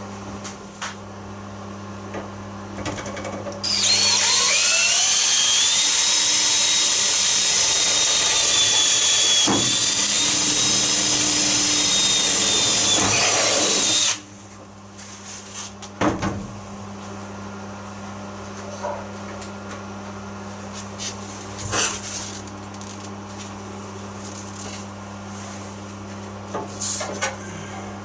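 A power drill spinning up and boring through the steel floor pan for about ten seconds, starting a few seconds in and winding down near the middle. Scattered clicks and knocks follow, and a steady low hum runs throughout.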